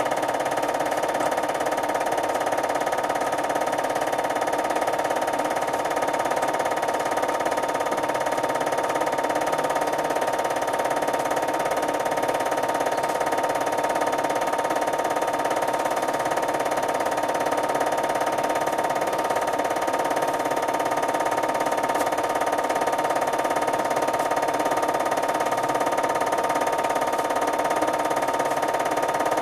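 Background music: a sustained synthesizer chord of many held tones, droning at an even level without change.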